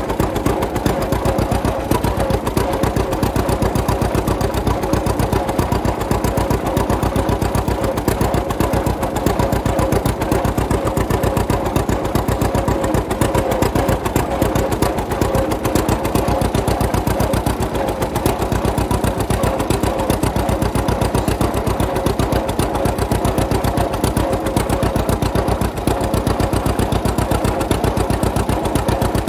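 1939 John Deere Model A tractor's two-cylinder engine running steadily, with evenly spaced firing beats.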